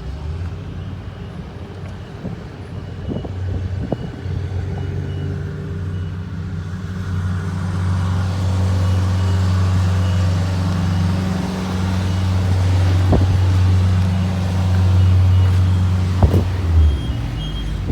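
A car driving: a steady low engine and road hum that grows louder partway through, with a few light knocks.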